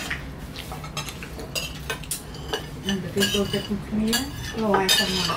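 Spoons clinking and scraping against ceramic plates and bowls as people eat, in short irregular clicks, with a voice talking from about three seconds in.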